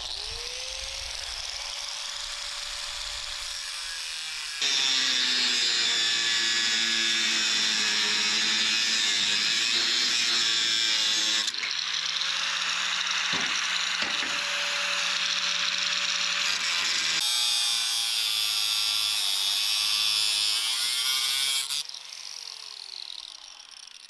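Corded angle grinder whining up to speed and cutting into the bars of an old metal crate, in several stretches with sudden jumps in loudness; its whine falls away as it winds down near the end.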